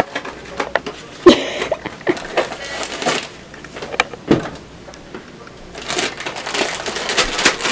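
Plastic pouch of brownie mix rustling and crinkling as it is handled and pulled open, with cardboard box handling and a sharp knock about a second in. The crinkling grows dense near the end.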